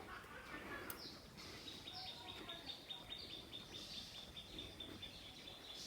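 Faint bird calls: a few short high chirps that drop in pitch, then a thin high trill held on one pitch that starts about two seconds in and keeps going.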